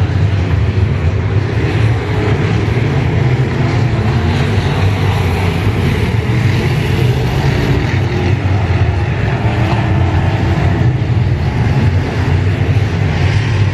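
A field of IMCA Modified dirt-track race cars racing, their V8 engines running at speed in a loud, steady mix.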